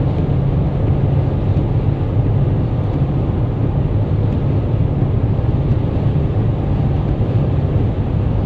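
Steady low road and engine rumble inside a car's cabin while driving at highway speed.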